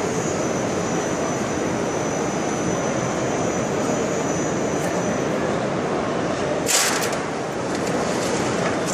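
Steady, loud roar of machinery running in an exhibition hall, with a brief hiss about seven seconds in.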